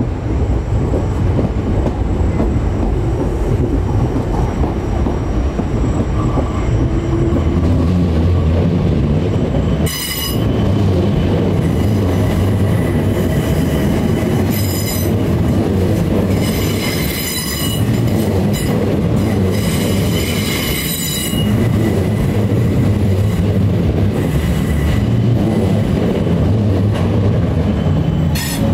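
Electric multiple-unit train moving on the tracks close by: a steady heavy rumble of wheels on rail, with the wheels squealing in several high-pitched spells as the train takes the curves and points.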